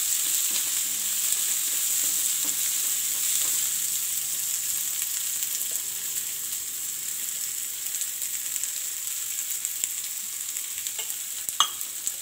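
Chopped onions, garlic and green chilli sizzling steadily in hot oil in a nonstick pan as they are lightly fried, stirred with a wooden spatula at the start. A couple of sharp clicks near the end.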